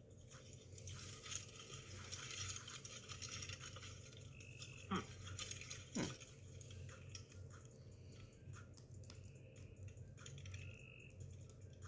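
Faint chewing and crunching of a chicken wrap being eaten, with small crackly clicks of the paper wrapper, over a steady low hum. Two quick downward sweeps stand out about five and six seconds in.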